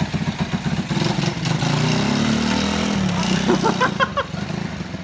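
Hero Puch moped's small two-stroke engine running with a rapid putter, revving up and down as it pulls away, then fading into the distance. A short voice-like cry about four seconds in.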